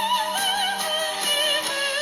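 A music track with a singer using wide vibrato over instrumental accompaniment, played at full volume through a smartphone's built-in loudspeaker, thin in the bass.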